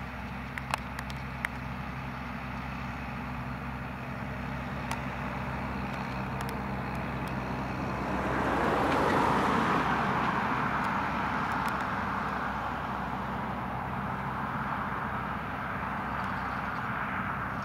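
New Holland T6070 tractor's six-cylinder diesel running steadily while pulling a grass harrow. It grows louder as it approaches, is loudest as it passes close by about nine seconds in, then fades as it moves away.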